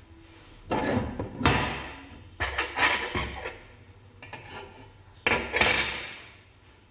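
Stainless steel potato ricer parts and perforated discs being handled and knocked against each other and the wooden tabletop: metal clattering and clinking in four short bursts, each ringing briefly.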